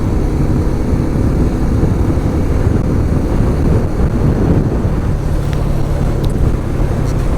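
Motorcycle running at highway speed, with steady wind rush and road rumble on the microphone; a steady engine tone comes through about five seconds in.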